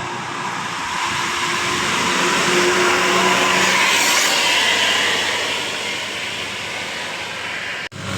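A bus driving past close by: a rush of engine and tyre noise that swells to its loudest about four seconds in and then fades, broken off by a sudden cut near the end.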